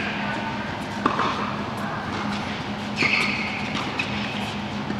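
Tennis balls knocking sharply on a hard indoor court or against strings, once about a second in and again about three seconds in, over a steady low hum from the hall.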